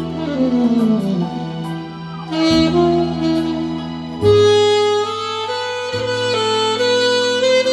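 Alto saxophone playing a slow ballad melody over a recorded backing track, with a falling run of notes in the first second or so and long held notes later on.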